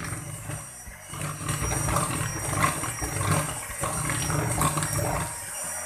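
Electric hand mixer running, its twin beaters churning flour into a cake batter in a plastic bowl; the sound dips briefly, then picks up about a second in.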